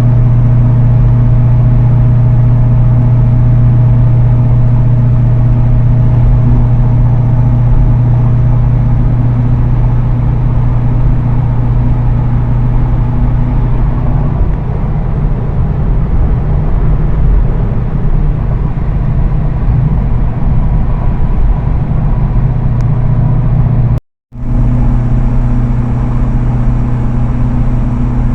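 C5 Corvette Z06's V8 engine running, heard from inside the cabin as a loud, steady low drone. The sound cuts out briefly about 24 seconds in, then resumes unchanged.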